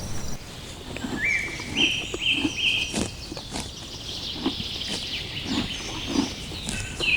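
Animal calls: short low calls with scattered clicks, and about a second in a run of four short rising chirps, each a little higher than the last.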